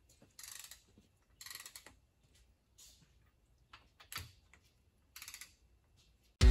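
Ratchet head of a click-type torque wrench clicking rapidly in about four short strokes as the head bolts of a torque plate on a Ford 351 Windsor block are run down for the first torque step, at 50. A single sharper knock comes a little past halfway. Music comes in right at the end.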